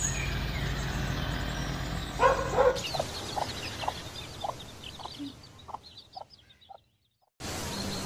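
Hen clucking: short clucks about two a second, growing fainter before cutting off. A brief, louder cluster of calls comes just before them.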